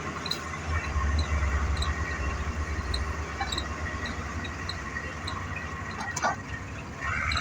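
Excavator diesel engine running steadily, with short high squeaks repeating about twice a second, typical of tracks or linkage under work. A falling squeal comes about six seconds in.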